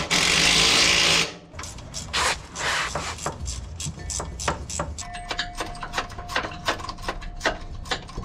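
Hand ratchet wrench working on suspension bolts: a loud rasping burst about a second long at the start, then irregular sharp clicks as the bolts are turned and tightened.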